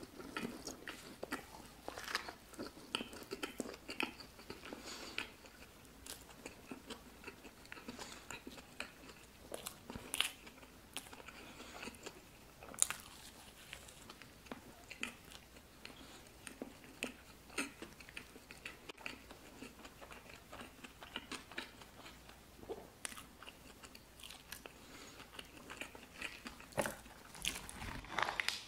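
Close-miked eating: biting and chewing food with irregular crunchy, moist mouth clicks. Near the end, louder crackles as a foil seasoning sachet is torn open over a cup of instant noodles.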